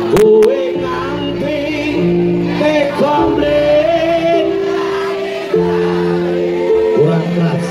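Live band music with held keyboard chords and a man singing over it. Two sharp clicks sound right at the start.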